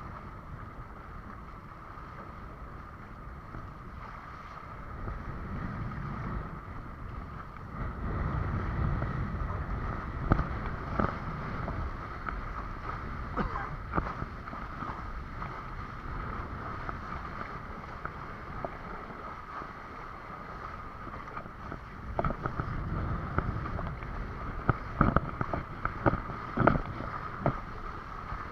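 Wind buffeting the microphone and water rushing past a windsurf board under sail. Sharp slaps and knocks come in clusters around the middle and near the end.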